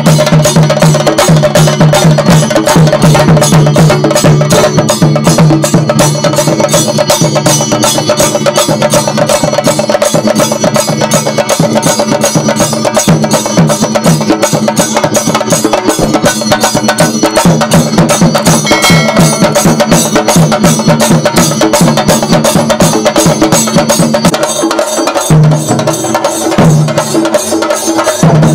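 Chenda melam: an ensemble of chenda drums beaten with sticks in fast, dense, unbroken strokes. A deep drum tone runs underneath and breaks off briefly a few times near the end.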